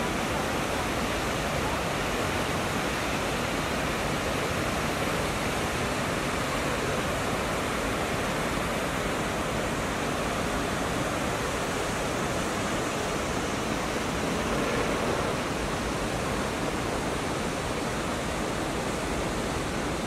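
Snake River whitewater cascading over boulders: a steady, unbroken rush of falling water.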